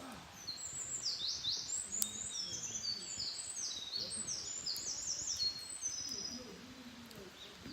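A small wild songbird singing one long, fast song of high-pitched, quickly falling notes, lasting about six seconds.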